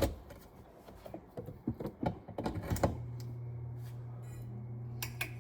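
Several sharp clicks and knocks of handling as the 1991 hugger ceiling fan is plugged in. About three seconds in, a steady low electrical hum starts as the fan's light kit powers up.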